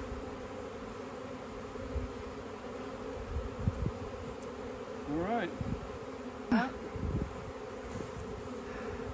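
A swarm of honeybees buzzing steadily around an open hive box, freshly hived with many bees still in the air. Twice, about halfway through, a single bee flies close past, its buzz rising and then falling in pitch.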